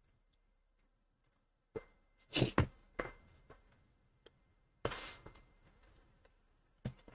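A few scattered computer-mouse clicks and small desk knocks, with a short soft hiss about five seconds in.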